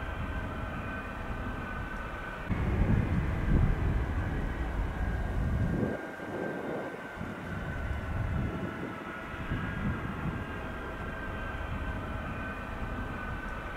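Boeing C-17 Globemaster III's four turbofan engines running at taxi power: a steady turbine whine over a low rumble. The rumble grows louder for a few seconds from about two and a half seconds in, then drops back.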